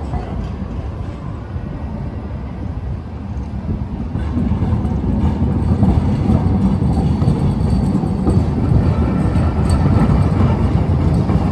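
Tram running on street track: a steady low rumble that grows louder about four seconds in.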